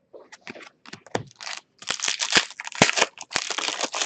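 Hockey trading cards being handled and slid across one another, a run of short rustling scrapes that grows busier from about two seconds in.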